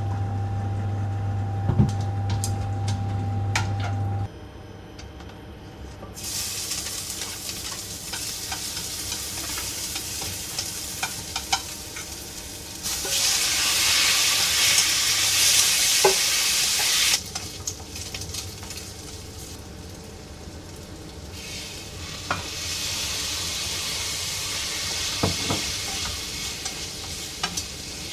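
Food sizzling in a hot frying pan, the sizzle coming in several spells that start and stop abruptly, with small taps of a utensil against the pan. For the first few seconds a steady appliance hum runs, then cuts off suddenly.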